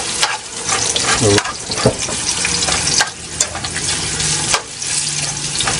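Sliced onions sizzling in hot oil in a metal pot over full heat, sautéing, while a metal ladle stirs them and clicks and scrapes against the pot now and then.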